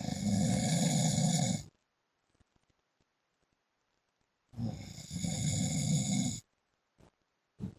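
A man snoring in his sleep: two long snores, each about two seconds long and roughly four seconds apart, with short faint breath sounds near the end.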